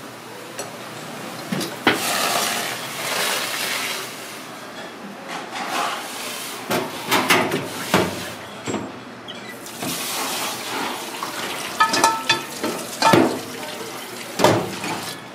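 Water splashing and running in a stainless steel sink as a pot of cooking water is drained and the contents rinsed under the tap, with several sharp clanks of the metal pot against the sink.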